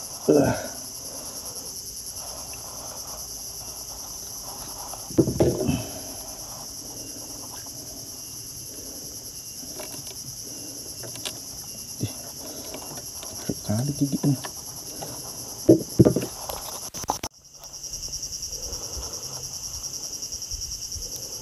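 A steady high-pitched insect chorus drones without pause, with a few brief low grunts and knocks over it. The sound drops out for a moment about three quarters of the way through.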